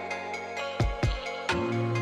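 Background music with a drum beat over sustained tones.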